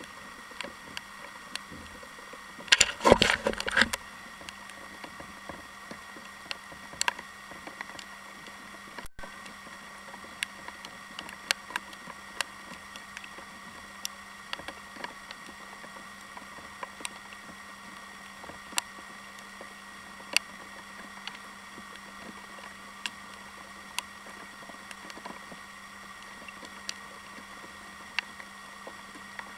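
Handling noise from an angler in a kayak cranking a baitcasting reel: irregular light clicks and taps over a faint steady hum, with a burst of loud knocks and rattles about three seconds in.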